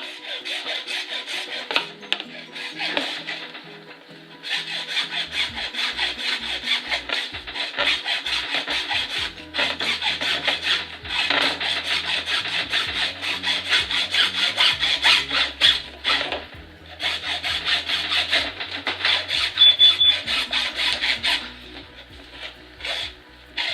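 Hand saw cutting through a pipe along a marked line, in runs of quick back-and-forth strokes with short pauses between them.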